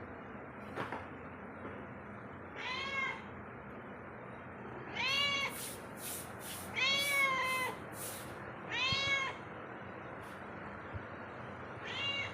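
Domestic cat meowing five times, each meow rising then falling in pitch, with the middle one the longest. A few short high ticks fall between the middle meows.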